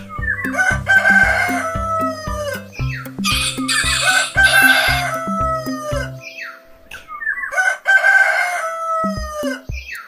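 Rooster crowing three times, each a long call that falls in pitch at its end, over background music with a steady drum beat that drops out after the second crow.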